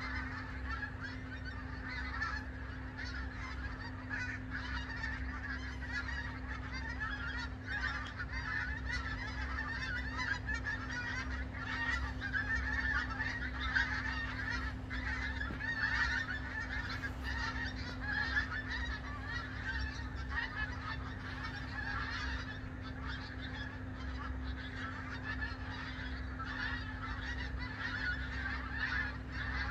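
A large flock of migrating geese calling as they fly over, a continuous chorus of many overlapping honks.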